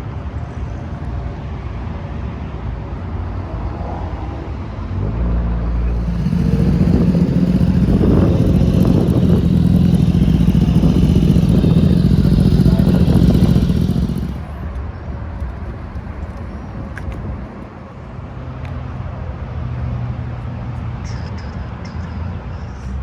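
A motor vehicle's engine running loudly at steady revs: a low, even drone that swells in about five seconds in, stays loud for about eight seconds, then drops away to a lower background engine rumble.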